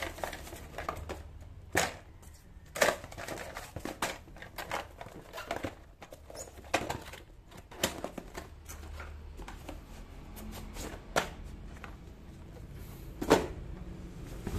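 Cardboard boxes and paper packaging being handled and moved, rustling, with scattered sharp taps and knocks, the loudest a little before the end.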